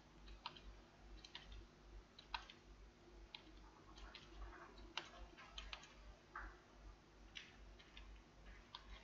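Faint, irregular clicks of a computer keyboard and mouse as numbers and formulas are entered into a spreadsheet, over a low steady hum.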